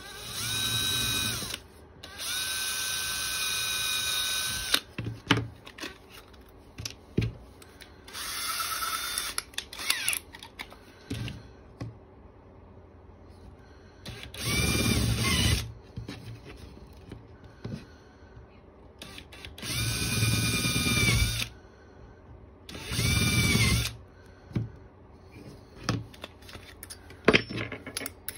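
Cordless drill drilling into a wooden lure blank in short bursts: about six runs of a steady motor whine, each one to three seconds long and spinning up at the start, with clicks and knocks from handling the blank and drill between them.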